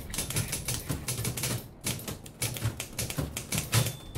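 Typewriter keys clacking in quick, irregular strokes, several a second.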